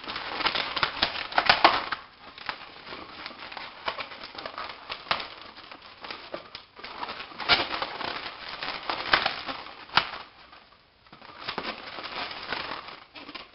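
Inflated latex 260 twisting balloons rubbing and squeaking against one another as they are twisted and wrapped around a balloon hat, in several irregular spells with short pauses between them.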